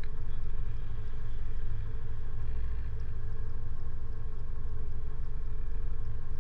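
Motorcycle engine idling steadily, with an even, unchanging beat.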